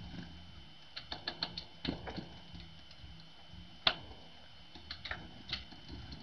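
A scattering of sharp ticks and clicks over a low background rumble: a quick run of them about a second in, a louder single click near the middle, and a few more near the end.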